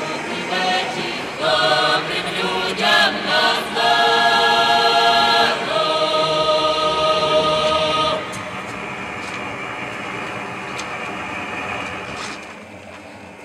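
Several voices singing together in harmony, drawing out long held notes. The singing stops about eight seconds in, leaving a quieter steady background with a few faint clicks.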